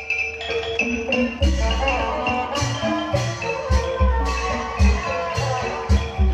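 Live instrumental music: quick mallet-struck notes like a xylophone over repeated low drum strokes.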